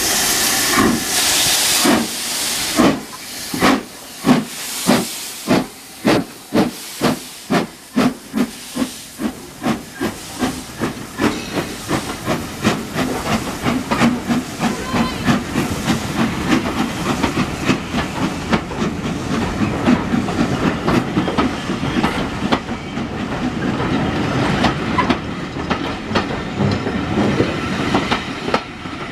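GNR No. 1744, an N2 class 0-6-2 tank steam locomotive, starting a train away: a hiss of steam, then exhaust chuffs that begin about a second apart and steadily quicken. In the second half they blur into the rumble of the coaches rolling past on the rails.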